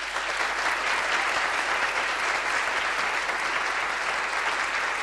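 A large group applauding, many hands clapping in a dense, steady patter.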